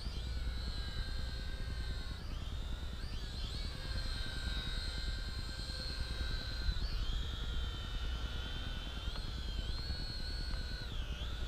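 XK X260 brushed quadcopter in flight: its four motors and propellers whining as several overlapping tones that dip and rise in pitch every few seconds as the throttle changes.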